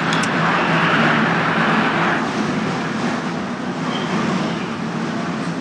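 Arena crowd noise at a basketball game: a steady din of many voices, louder for about the first two seconds, then settling to a lower, even hum.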